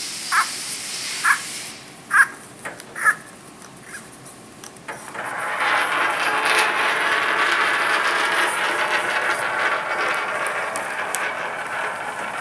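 Torque wrench working on a milling chuck's clamping sleeve: four sharp metallic clicks about a second apart, then a steady rushing noise from about five seconds in.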